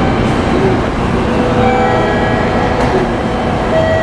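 JR Kyushu 783 series electric train at a station platform, with a steady loud rumble of train and station noise. A few faint steady tones come and go over it.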